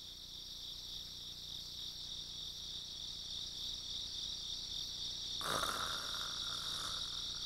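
Crickets chirping in a steady, high, fast-pulsing trill. About five and a half seconds in, a brief burst of noise sounds over them for a second or so.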